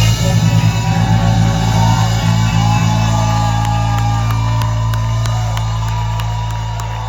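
Live band holding a final chord: a deep bass note and electric guitar chord ring out and slowly fade, with scattered sharp hits over the top.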